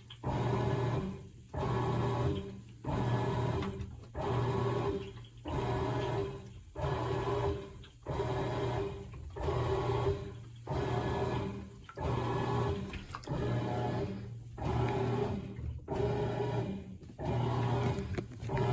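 Crosley top-load washing machine agitating: the motor and agitator run in regular strokes a little over a second apart, each with a brief dip between as the agitator reverses, with water and clothes sloshing in the tub.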